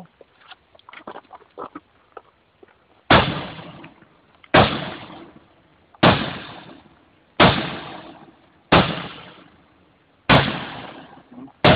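Hammer striking a car's side window glass hard, seven sharp blows about every second and a half starting about three seconds in, each crack followed by a short ringing decay.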